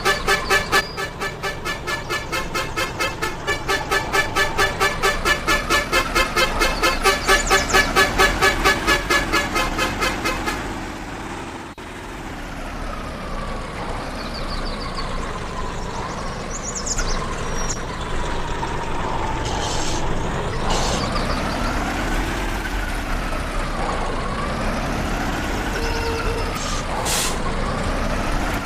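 Vehicle engine running with a rapid, even pulsing for about the first ten seconds. After an abrupt change, the engine's pitch rises and falls repeatedly as it revs up and down.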